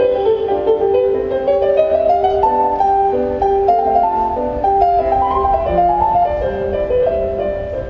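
Solo grand piano playing a classical piece: a steady repeated note in the middle range under a melody that climbs and then falls back, twice.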